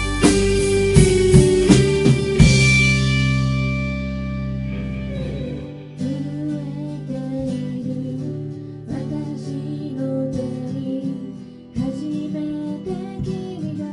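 A live band of acoustic and electric guitars, drums and keyboard plays together for the first couple of seconds, with drum hits, and ends on a chord that rings out and fades. About six seconds in, a quieter passage starts with guitar and keyboard under a sung melody.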